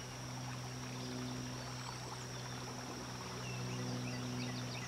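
Creek-side ambience: a faint wash of running water under a steady low hum, with a steady high thin whine. A few short chirps come in over the last couple of seconds.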